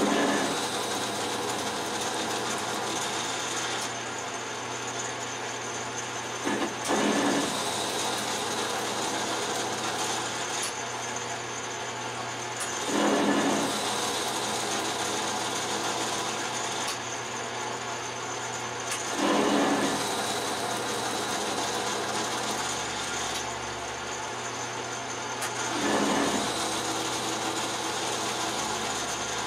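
Metal lathe running with its tool bit cutting the spinning steel workpiece: a steady machine noise with a low hum, rising in a louder surge about every six seconds.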